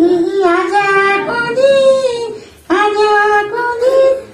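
A high voice singing a slow melody in long held notes, voicing a puppet character. Two phrases, with a short breath-break about two-thirds of the way through.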